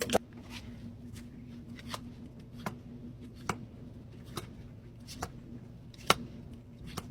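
Pokémon trading cards being flipped through one at a time: a crisp card snap about every second, over a faint steady hum.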